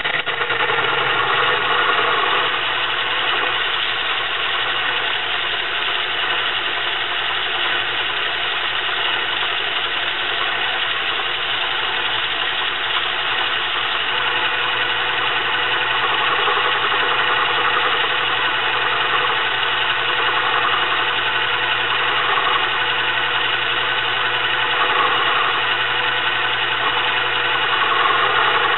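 Small metal lathe running steadily while turning down a steel shaft, the motor and spinning chuck making a continuous machine noise that swells a little in pitch now and then.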